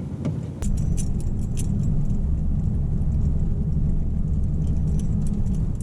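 Truck driving over a rough dirt road, heard from inside the cab: a steady low rumble of engine and tyres with irregular clinks and rattles over it. The rumble gets louder about half a second in and starts to fade at the very end.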